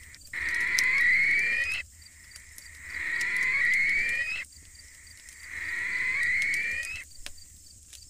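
Night bird call sound effect: a drawn-out call that rises steadily in pitch and cuts off sharply, heard three times about two and a half seconds apart.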